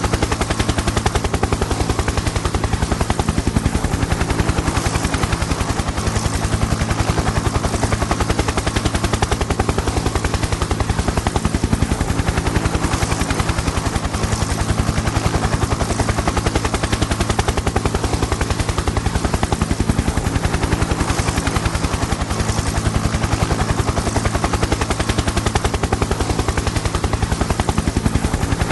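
Helicopter in flight: its rotor blades beat a fast, steady chop over a constant engine drone.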